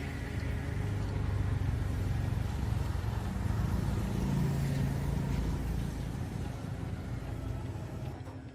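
A machine running steadily with a low hum and a noisy whir, easing off slightly near the end.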